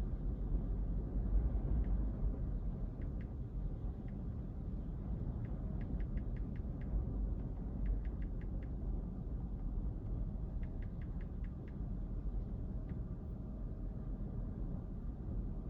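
Steady low rumble of ocean surf from a typhoon swell, with faint short runs of high ticking chirps several times.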